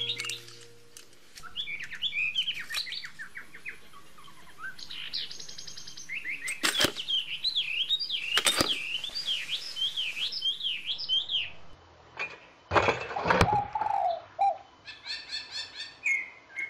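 Birds chirping in quick, wavering calls, with two sharp clicks in the middle and a short noisy burst about three quarters of the way through.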